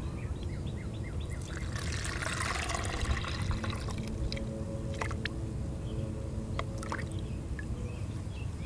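Warm water poured from a glass measuring cup into a plastic tub of glue: a splashing trickle for about a second and a half, starting about two seconds in.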